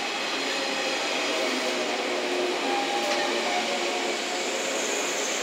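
Seven-car JR West 115 series electric train moving slowly beside a platform: a steady running hum with faint tones that come and go.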